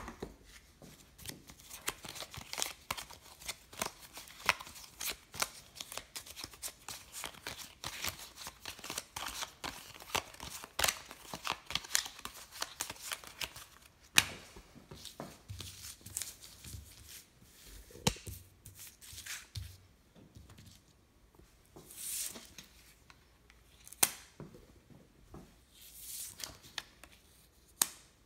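Playing cards being handled and laid down on a countertop: a rapid run of card flicks and snaps for about the first half, then single card sounds spaced about two seconds apart.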